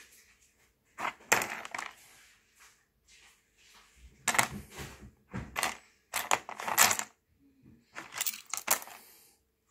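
Rough opal stones clicking and scraping against each other in a tray as pieces are picked up and handled. The sound comes in four short clusters: about a second in, around four to five seconds, around six to seven seconds, and around eight to nine seconds.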